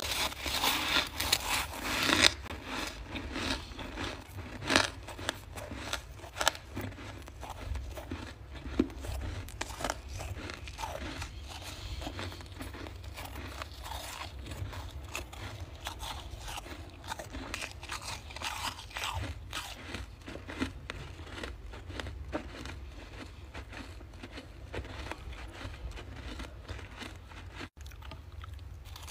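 Freezer frost being bitten and chewed: irregular crisp crunches, densest in the first two seconds and sparser after, over a steady low hum.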